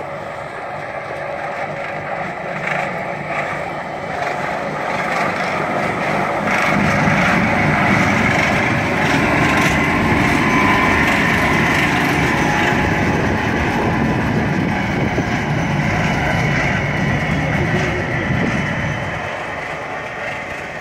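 Snowdon Mountain Railway diesel rack locomotive No. 10 running with its carriage, its engine note and running gear growing louder from about seven seconds in as it passes close, then fading near the end.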